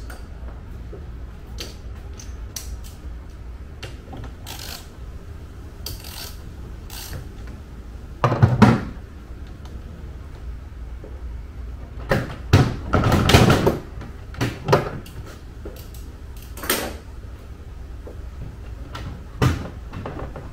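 Plastic trim pieces and fittings in a Tesla Model 3's front trunk being handled and worked loose by hand: scattered light clicks and knocks. There is one louder scraping knock about eight seconds in and a cluster of them between about twelve and fourteen seconds.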